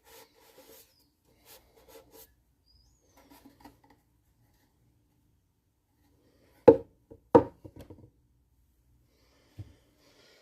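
A cloth pad rubbing a shellac finish onto the ukulele's wood in short, faint strokes. About halfway through come two sharp knocks, which are the loudest sounds, then a few lighter taps and one more knock near the end.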